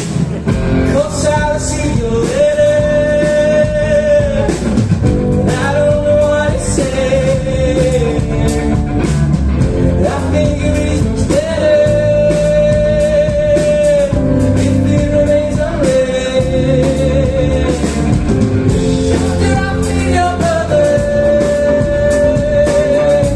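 Rock band playing live: a singer holds long notes, each about two seconds, over guitar, bass and drums.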